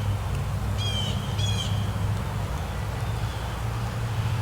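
A bird calls twice, two short calls bending down in pitch about a second apart, over a steady low hum.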